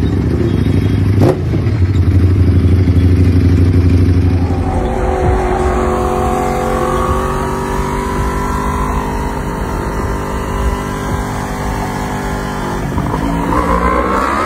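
Sport-bike engines: a Ducati Panigale V4 rumbling low in slow traffic with a sharp crack about a second in, then a Yamaha R1 revving as it rides, its engine pitch rising and falling, with another rise in revs near the end.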